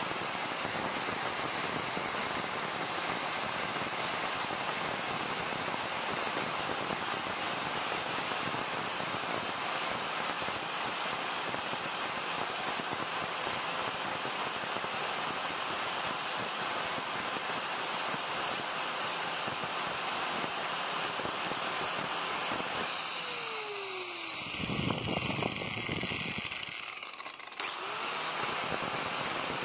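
Angle grinder with a sanding flap disc running steadily against a water pump's steel shaft to take off rust. About three quarters of the way through, its pitch drops and the sound changes for a few seconds before the steady grinding returns.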